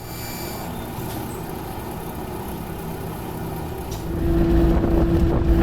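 Car driving with a worn wheel bearing: steady road and running noise, getting louder about four seconds in as a steady hum comes in.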